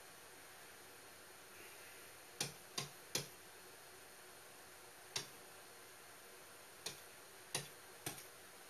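About eight sharp taps, spaced irregularly, as keys on an on-screen keyboard projected onto a whiteboard are pressed against the board's surface, over a faint steady hiss.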